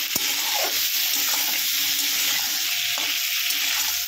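Ridge gourd strips sizzling in hot mustard oil in a wok while a steel spatula stirs them, scraping and knocking against the pan a few times.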